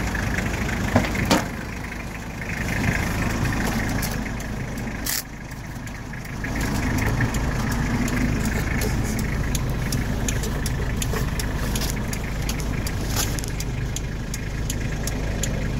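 Toyota 2C two-litre diesel engine idling with a steady low rumble. A few sharp clicks come about a second in and again about five seconds in.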